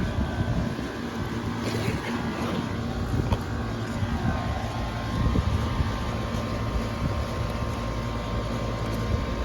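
Steady drone and low hum of running air-conditioning equipment, with a few faint clicks and scrapes of hand work as a welded-shut contactor is worked loose.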